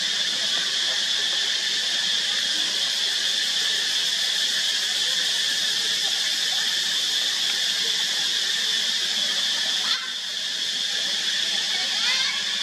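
Steady high-pitched drone of an insect chorus. A click and a brief drop in level come about ten seconds in.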